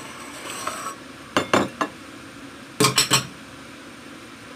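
Spoon scraping a dish, then clinking against it in two quick sets of three knocks about a second and a half apart.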